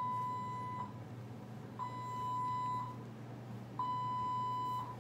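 IV infusion pump alarm: three steady, one-second beeps at one pitch, starting about two seconds apart. The alarm signals a downstream occlusion in the line.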